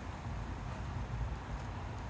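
Gusty thunderstorm wind buffeting the microphone: a low, uneven rumble with a hiss over it.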